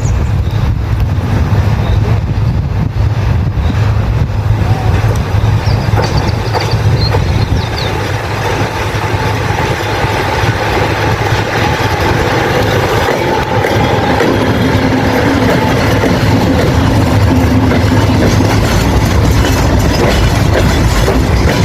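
Freight train rolling past at close range: a loud, steady low rumble with the clatter of wagon wheels on the rails. A few bird chirps come through in the first seconds and again about five to seven seconds in.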